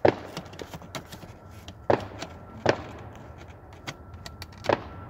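Fireworks going off: four loud, sharp bangs at irregular intervals, each with a short echo, with smaller pops between them.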